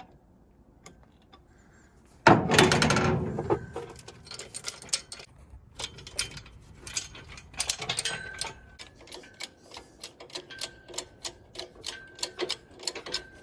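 Engine hoist lifting a 440 big-block short block on a chain: a loud clattering rattle about two seconds in, then a long run of sharp metallic clicks and creaks, several a second, as the hoist is jacked up and takes the weight.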